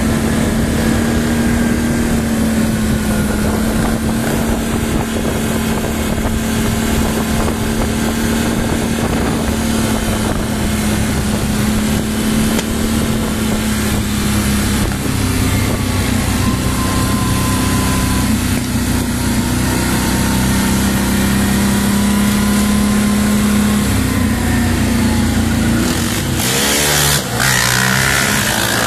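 Quad bike (ATV) engine running steadily at cruising speed, heard from the moving quad, with wind noise over the microphone. Near the end the engine note wavers and drops in pitch as it slows.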